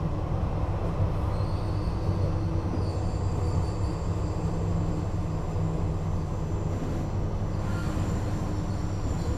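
Duewag B80C Stadtbahn light-rail car running on the track: a steady low rumble with a faint high whine over it.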